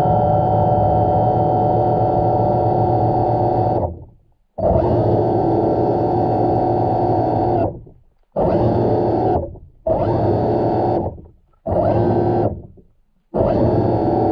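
Background music of sustained synthesizer-like chords, played in phrases that start abruptly and fade out, with short silent gaps between them. The first phrase lasts about four seconds; the later ones last one to three seconds.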